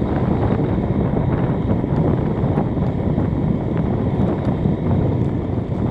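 Wind rushing over the microphone of a moving motorcycle, with a steady low rumble of engine and road noise underneath.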